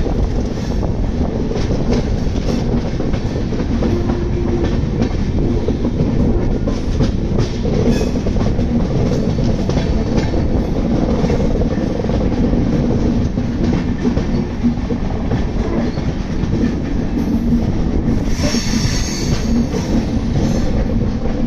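Netravati Express passenger train running on a curve, heard from an open coach doorway: a steady rumble of wheels on rail with clickety-clack over the joints. A harsher, higher-pitched rasp joins for a few seconds near the end.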